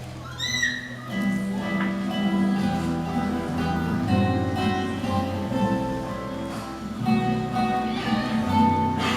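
Acoustic guitars strummed and plucked in an instrumental passage of a song, with a short rising slide about half a second in.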